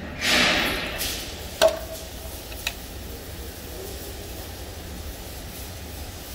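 A short rush of scraping noise, then a sharp knock with a brief ringing tone, and a fainter click about a second later, over a steady low hum.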